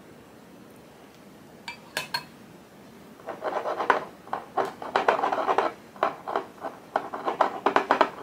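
A metal spoon clinks two or three times against a small glass cup, then the glass, holding thick avocado cream, is knocked and shuffled rapidly against the table in a long run of quick taps and rubbing to settle and level the filling.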